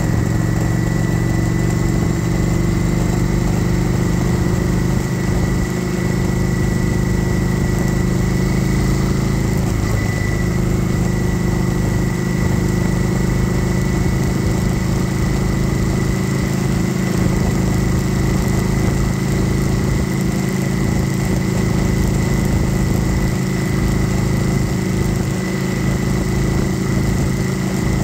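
Kawasaki Vulcan 900 Classic SE's V-twin engine running steadily while cruising, its note creeping slightly higher over the stretch.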